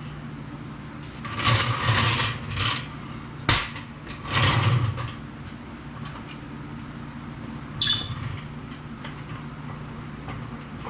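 Hand-tool work on a truck door hinge: two short spells of scraping and rattling metal in the first five seconds, with a sharp click between them, then a single ringing metal clink about eight seconds in, over a steady low hum.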